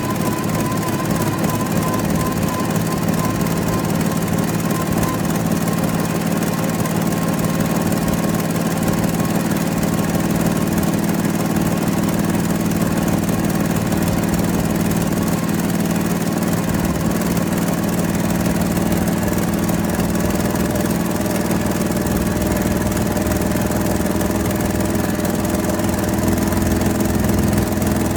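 Toyota 1FZ-FE inline-six engine idling steadily after a rebuild. A thin, wavering whine sits over the engine note and fades out within the first several seconds.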